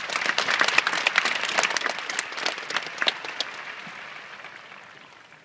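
Large stadium crowd applauding, with many sharp individual claps. It swells within the first second and then fades away steadily.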